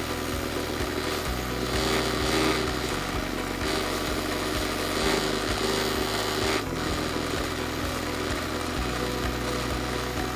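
Wood lathe running steadily, with a turning tool working against the spinning wooden bowl blank; the scraping hiss swells in a few passes during the first half.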